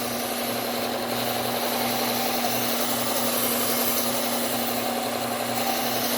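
Bucktool low-speed belt sander with a Cubitron P120 belt running, a steady motor hum under the hiss of knife steel being ground against the belt to reprofile a broken tip.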